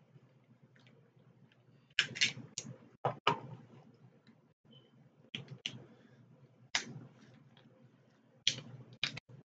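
Close-up eating sounds: short, sharp clicks and crackles from chewing and from hands working at seafood shells, coming in small clusters at about two, three, five and a half, seven and eight and a half seconds in.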